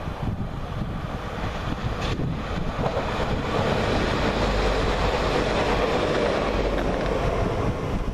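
Double-deck regional train passing close by: the rush of its wheels on the rails builds about three seconds in and is loudest through the middle, then begins to fade.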